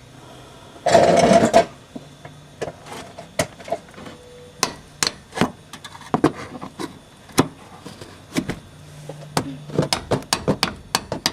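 A tool clicking, tapping and scraping at a broken plastic fastener piece stuck in a mounting hole in a truck's wheel well, with many scattered sharp clicks and knocks. A brief loud, noisy burst comes about a second in.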